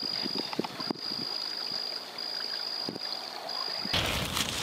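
A faint, steady high-pitched whine that breaks off briefly now and then, over a soft hiss with scattered small ticks. Near the end it gives way to louder rustling and crunching of footsteps through dry leaf litter.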